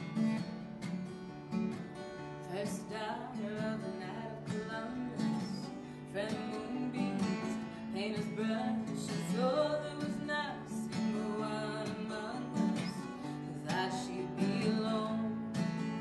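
Steel-string acoustic guitar strummed steadily as a song's opening, with a woman's wordless vocal melody gliding and wavering above it through the middle.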